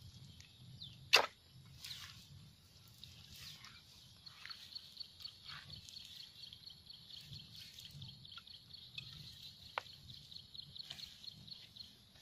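A single sharp snap about a second in, then a steady high-pitched buzz from about four seconds on, with a fainter click near the end.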